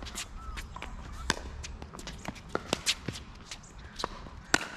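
Pickleball rally: a string of sharp pops as paddles strike the plastic ball. The loudest pops come about a second in and near the end.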